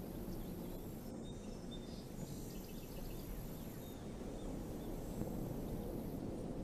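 Outdoor ambience: a steady low rumble of background noise, a high insect buzz that drops out now and then, and a few faint bird chirps between about one and three seconds in.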